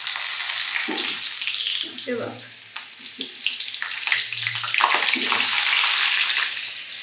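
Hot oil in a kadhai sizzling loudly as wet food goes into it: a steady, bright hiss with a few short knocks and scrapes through it.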